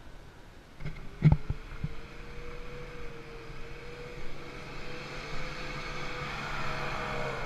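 A few sharp thumps come about a second in. Then an off-road SUV's engine runs steadily under load as the vehicle crawls across sandy ground towards the camera, getting gradually louder.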